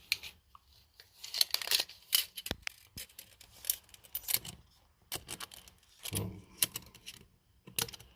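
Chrome sockets being handled, with scattered sharp metallic clicks and clinks.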